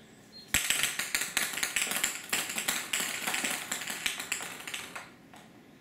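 A handful of ping pong balls hitting a tile floor about half a second in, then a dense clatter of rapid bouncing clicks that thins out and dies away over about four seconds.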